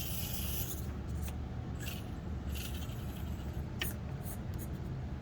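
Axial SCX24 micro RC crawler with a Furitek brushless motor creeping slowly over the rocky course: a low steady hum with scattered short scrapes of tires and chassis on rock and dirt, and one sharp click about four seconds in.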